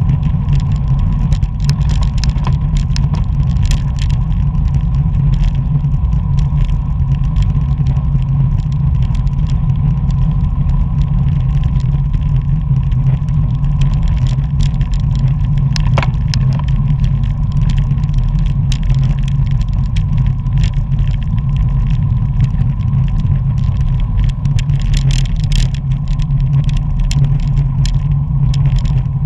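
Road bicycle riding at speed: a steady low rumble of wind buffeting the bike-mounted camera's microphone and tyre noise on asphalt, with scattered light clicks and rattles from the bike.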